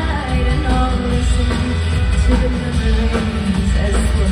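Live rock band playing with a woman singing over it, bass-heavy, as heard from the audience in a concert hall.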